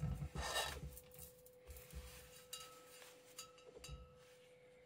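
Faint handling sounds of a metal antenna tube being bent by hand around a glass wine bottle: a soft rubbing of leather work gloves in the first second, then a few light clicks and clinks of tube against glass.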